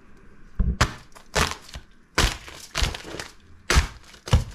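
The edge of a ceramic plate chopping through a roast suckling pig's crisp skin: a run of about seven sharp cracks and crunches, a stroke every half second or so. The skin is crackling-crisp and the meat tender enough to cut with a plate.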